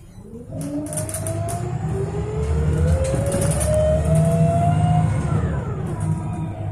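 City bus accelerating from a stop, heard from inside the cabin: a low engine rumble under a whine that climbs steadily in pitch for about five seconds, then fades.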